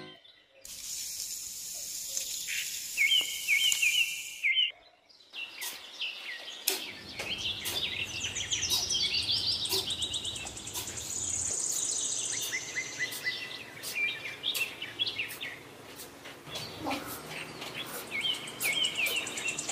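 Birds chirping and trilling over a high, steady insect-like hiss, with scattered short clicks. The same chirp phrase recurs twice.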